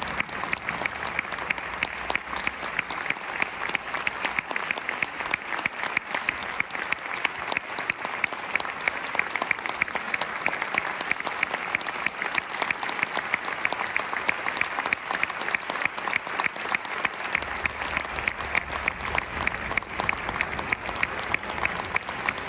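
Concert audience applauding steadily, a dense clatter of many hands, with sharp claps from close by standing out above the rest.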